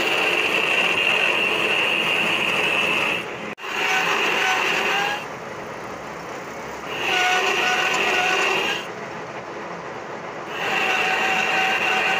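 Metal lathe screw-cutting a coarse thread into a metal shaft with a single-point tool. Four cutting stretches of a couple of seconds each carry a steady high-pitched whine, with the quieter sound of the turning lathe between them. There is a brief dropout about three and a half seconds in.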